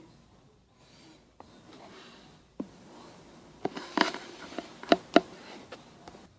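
Lego Technic pieces and their packaging being handled: a light rustle, then a string of sharp plastic clicks and taps in the second half.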